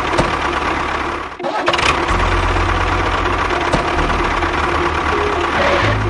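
A tractor engine running steadily. It drops out briefly about a second and a half in, then comes back with a heavier low rumble.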